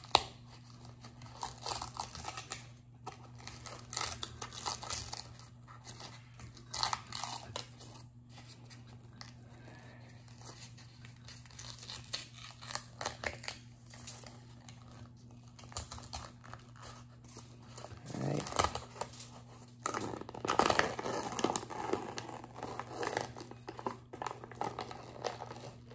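Paper wrapping being torn and peeled off a baked cornstarch brick, in irregular crinkles and small rips that grow busier near the end. A steady low hum runs underneath.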